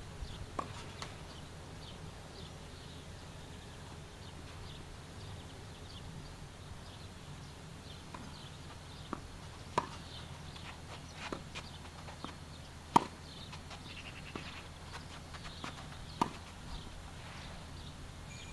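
Tennis balls struck by rackets during a rally: a few sharp pops spread seconds apart, at about ten, thirteen and sixteen seconds in, the one near thirteen seconds the loudest, with fainter knocks between them. Underneath, a steady low background noise.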